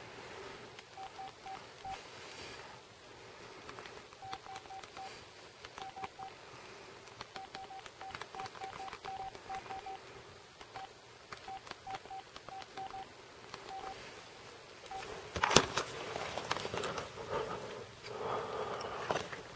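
Runs of short electronic beeps, all at one pitch, coming in irregular groups. About fifteen seconds in there is a sharp knock, the loudest sound, followed by rustling and clattering.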